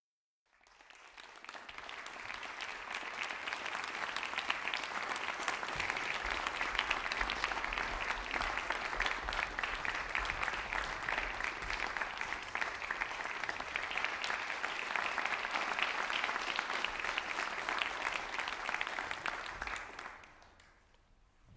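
Audience applauding: the clapping swells up about half a second in, holds steady, and dies away about a second before the end.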